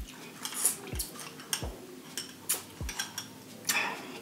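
Drinking an iced drink through a straw: several low swallowing gulps, with sharp clicks of ice against the glass in between.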